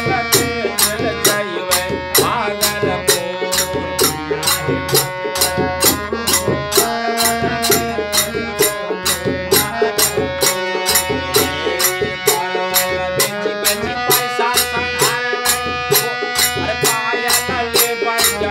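Folk Holi song played live on a harmonium, with a dholak and small hand cymbals keeping a steady beat of about three strokes a second, and men's voices singing along.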